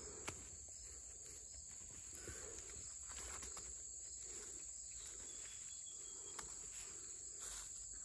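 Steady high-pitched insect chorus, such as crickets, with faint rustling of hands digging through wood-chip mulch and soil.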